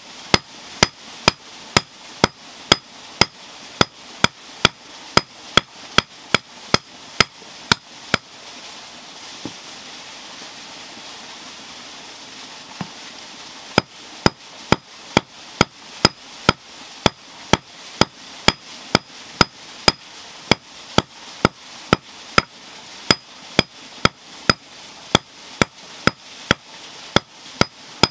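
Hammer forging iron, striking the metal steadily about two and a half times a second with a bright metallic ring on each blow. About eight seconds in, the hammering stops for roughly five seconds, leaving two light taps, then picks up again at the same pace.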